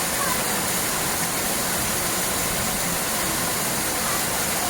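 Steady rush of falling or fast-flowing water, an even roar with no breaks.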